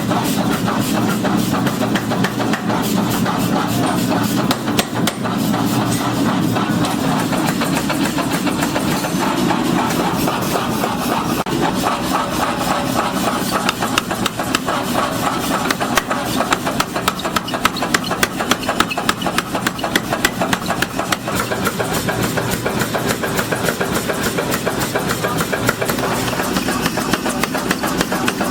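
Workshop machinery running steadily with a fast, continuous clatter of knocks. The knocking grows sharper and more uneven about halfway through.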